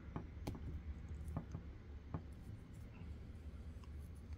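A few light plastic clicks and taps, most in the first two seconds, as a lightsaber accessory is handled and fitted to a Hasbro Black Series Darth Vader action figure, over a faint low hum.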